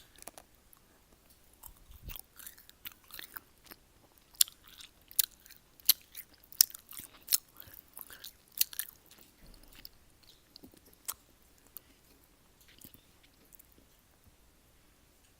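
Close-miked chewing of gummy jellies: a run of sharp, wet mouth clicks and smacks, thickest in the middle and thinning out toward the end.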